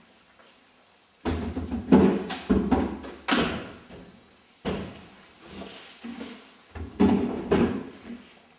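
A large box-shaped plinth being tipped and shuffled across a hard floor, with heavy thuds and scrapes in three bursts, the first about a second in.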